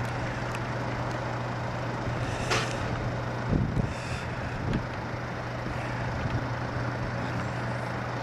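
A motor running with a steady low drone under outdoor noise, with a short hiss about two and a half seconds in and a few dull knocks a second later.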